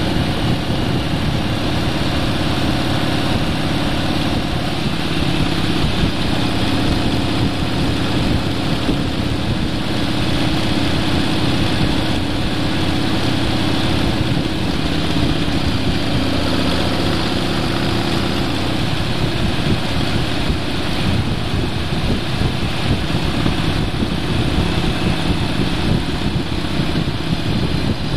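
Vehicle engine running at road speed, with heavy wind and road noise on the onboard microphone, steady throughout.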